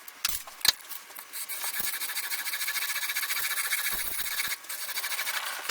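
Stanley No.4 plane iron in a honing guide being rubbed on 240-grit sandpaper: a steady gritty rasping with a brief break about four and a half seconds in. A few clicks come before it, near the start.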